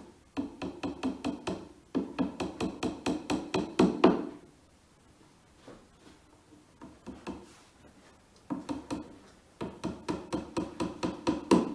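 Hammer tapping wooden dowels into the shelf unit's centre panel: two runs of quick light taps, several a second, with a few seconds of scattered lighter taps between.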